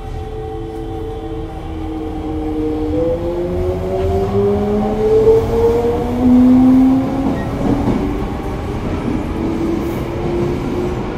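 Mitsubishi GTO-thyristor VVVF inverter traction motors of a Toei 5300 series subway train accelerating, over the rumble of the running gear. Several whining tones rise together and jump to new pitches as the inverter shifts modes, about three seconds in and again later. The sound grows louder toward the middle.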